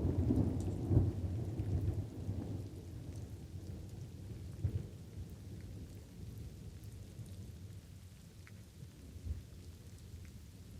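Thunder rumbling, loudest about a second in, then dying away to a low, uneven rumble. Light rain runs underneath, with scattered drops.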